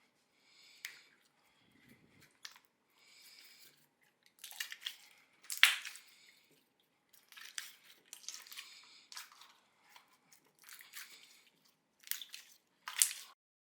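Slime being squeezed and pressed by hand, making irregular wet squishes and sticky crackles. The loudest crackles come about halfway through and again near the end.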